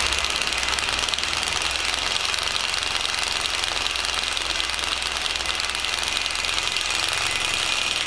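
Cordless impact driver hammering continuously as it drives a screw through a jack nut tool, drawing a jack nut tight into sheet metal so its wings spread behind the panel. The rapid rattling holds steady and cuts off suddenly at the very end.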